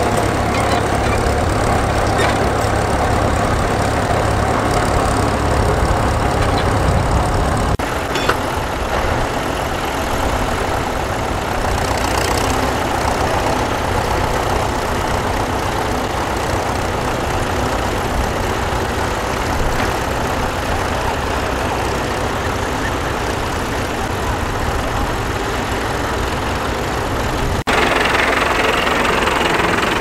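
Vintage tractor engines running steadily while pulling ploughs through the soil. The sound changes suddenly about eight seconds in and again near the end, as it moves from one tractor to another.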